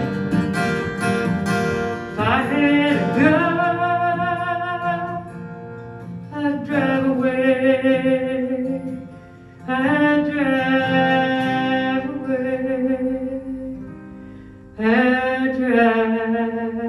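Acoustic guitar strumming, then a woman's voice singing four long, held wordless phrases over quieter guitar, each phrase sliding in pitch at its start.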